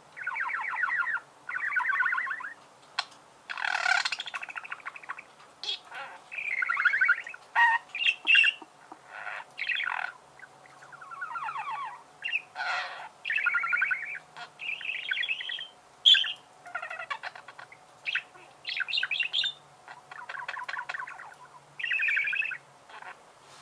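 Budgerigars warbling: bursts of fast, squeaky chattering chirps about a second or two long, broken by short pauses, with a few sharp clicks between phrases.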